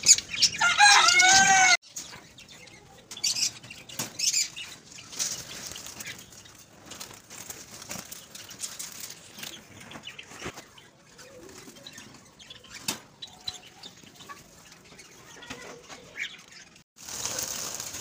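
Java sparrows chirping loudly, a quick run of repeated falling chirps that breaks off abruptly about two seconds in. Then comes a quieter stretch of wing flutters, scattered clicks and occasional faint chirps from birds moving about in the aviary cages.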